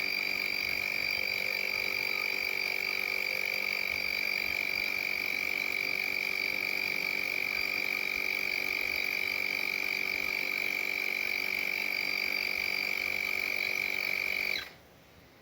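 AstroAI 12 V portable air compressor running steadily with a high-pitched whine over a buzzing motor hum. It cuts off suddenly near the end.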